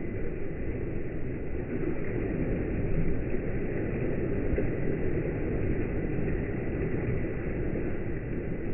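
Water surging and breaking in waves along a laboratory wave flume, over a steady low rumble with a faint high whine.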